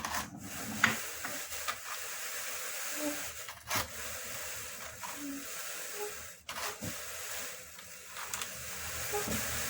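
Drum carder turning as Jacob wool fleece is fed through, a steady rustling hiss with a few light clicks.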